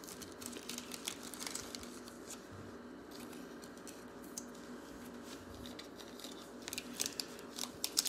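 Faint clicking and sliding of trading cards as they are flipped through by hand, then the crinkle of a foil card pack wrapper near the end.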